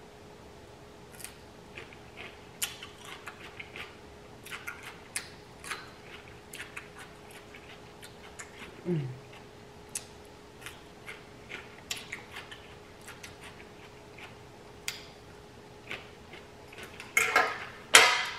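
Close-miked eating sounds: a fork clicking against a glass bowl of seafood boil and short, wet chewing and crunching from mouthfuls of food and cucumber. The clicks are scattered and irregular, with a louder cluster near the end.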